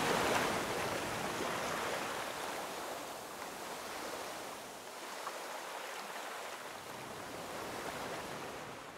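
Sea waves washing: a steady rushing noise that gently swells and ebbs and slowly grows quieter. The last of a music track dies away right at the start.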